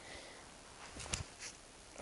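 A few light knocks and clicks about a second in, over faint background hiss, from digging and handling rubble in the soil.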